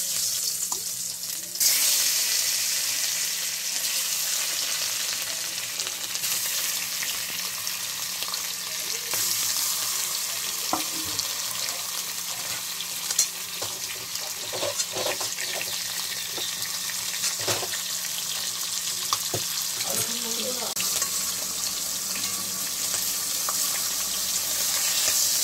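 Turmeric-coated rohu fish pieces frying in hot oil in a kadai: a steady sizzling hiss that gets louder about two seconds in, with a few light clicks and knocks.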